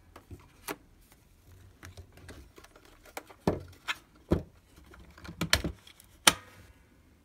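Scattered hard plastic clicks and knocks from a Polaroid Amigo 620 instant camera being handled and folded shut, with a sharp snap near the end.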